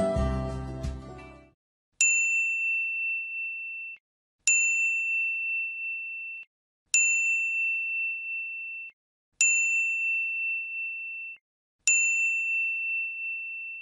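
Notification-bell ding sound effect repeating five times, about every two and a half seconds; each ding is one bright ringing tone held for about two seconds and then cut off. Soft music fades out during the first second and a half.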